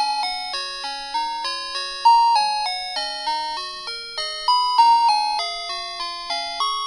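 Background music: a bell-like melody of single struck notes, each ringing and fading, about three notes a second.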